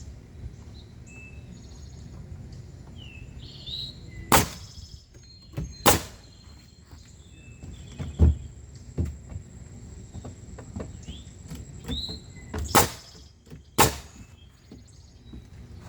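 About six sharp knocks at uneven intervals from nailing wooden wall framing, with small birds chirping in between.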